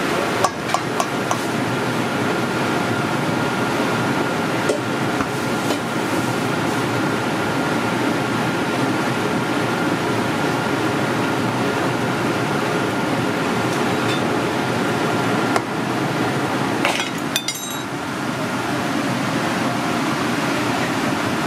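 Steady rushing background noise of a restaurant kitchen, with a few sharp metal clinks: a quick cluster about half a second in and single ones later.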